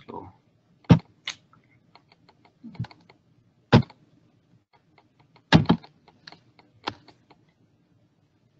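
Irregular clicking at a computer, mouse buttons and keys: a few loud sharp clicks with lighter ticks scattered between them.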